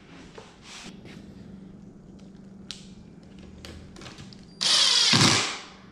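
Cordless impact driver driving a screw into OSB particle board, one loud burst of about a second near the end. A few faint clicks come before it.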